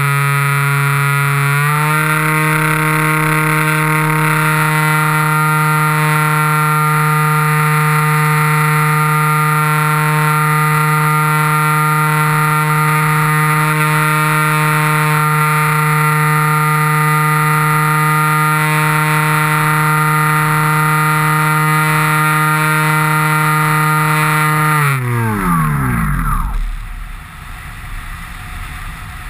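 Electric motor and propeller of a radio-controlled plane running at steady throttle with a droning whine that steps up slightly about a second and a half in. Near the end the throttle is cut and the whine falls in pitch as the propeller spins down to a stop, leaving the rush of airflow.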